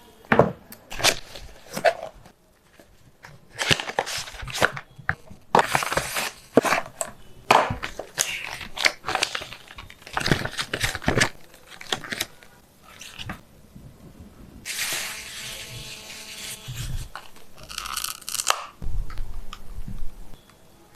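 Packaging being handled and opened: crinkling and tearing in short, irregular bursts, with one longer continuous stretch about fifteen seconds in that cuts off suddenly.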